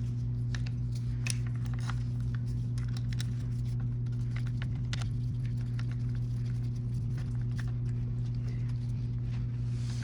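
Small scattered clicks and ticks of screws and a Phillips screwdriver being handled while a switch housing is fastened to a handlebar, over a steady low hum.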